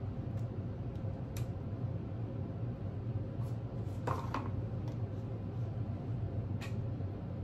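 Fast-food paper and cardboard packaging being handled: a few soft taps and crinkles, the clearest a brief cluster about four seconds in, over a steady low hum.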